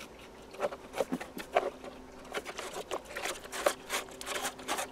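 A thin carbon fiber rod being pressed by hand into a slot cut in an EPP foam wing: irregular small clicks and scratchy rubbing of fingers and rod against the foam.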